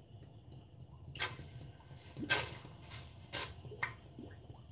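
Buffalo hot sauce shaken out of its bottle into an empty stainless steel stockpot: five short splats and sputters over a few seconds as the sauce glugs out and hits the metal.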